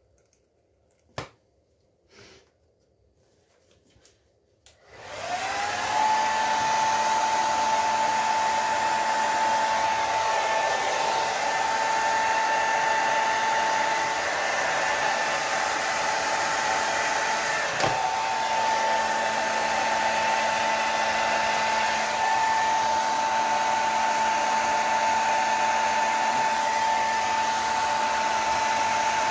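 A few faint clicks, then a hand-held hair dryer switches on about five seconds in, its motor whine rising and settling into a steady high hum as it blows wet acrylic paint across the top of a painted box.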